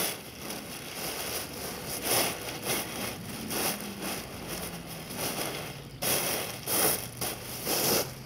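Paraglider canopy fabric rustling in a series of short bursts as the wing is pressed down and folded into a compact package.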